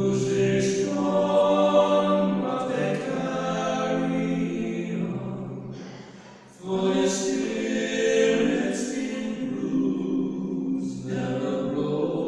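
Three male tenors singing a slow song together in harmony into microphones, with long held notes. The singing fades out at the end of a phrase about six seconds in and comes back in strongly a moment later.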